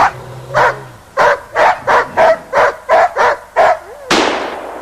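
Hunting dog barking fast, about nine sharp barks in a row, then a single loud bang a little before the end.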